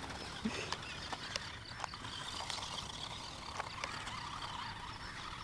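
Off-road RC toy car running over stones: a faint whir of its small motor with scattered light clicks and knocks.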